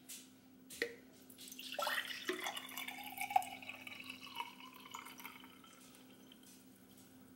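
Lemon water poured from a glass carafe into a tall hobnail drinking glass: a splashing, trickling pour that starts about a second and a half in and tapers off over a few seconds. A light knock comes just before the pour begins.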